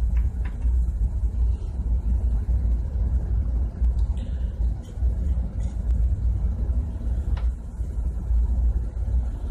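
Steady low rumble of a ship's engine-room machinery, with a few faint clicks near the start and again near the end.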